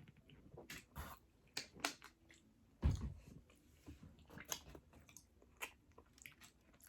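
Close-miked eating: chewing and biting with crackly crunches and wet mouth clicks, in irregular bursts. A dull thump stands out about three seconds in.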